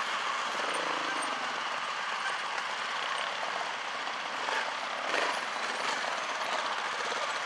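Trials motorcycle engine running with a rapid, even pulse, with a brief louder blip of throttle about five seconds in.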